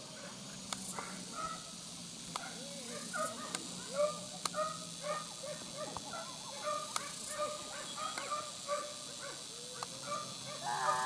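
Pack of hunting dogs barking and yelping, many short barks overlapping one after another; near the end one longer drawn-out cry.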